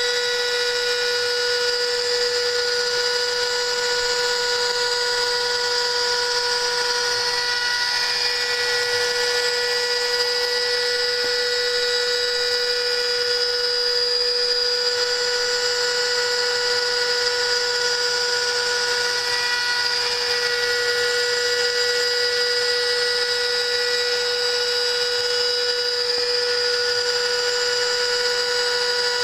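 CNC router spindle milling 5 mm aluminium sheet: a steady high whine made of several even tones, over the hiss of the cutter chipping the metal.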